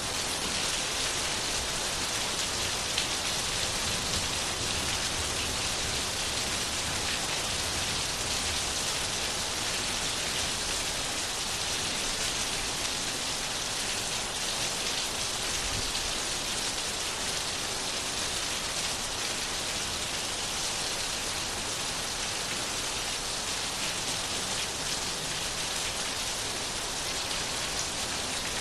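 Steady rain falling, an even hiss of many drops that neither builds nor eases.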